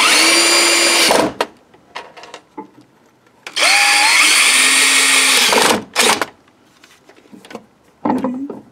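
Cordless drill-driver running in two bursts, one of about a second and one of about two seconds, each starting with a rising whine, as it drives the screws that mount a cabinet vise's flanges to the underside of a workbench. A short blip of the motor follows, then a few light knocks near the end.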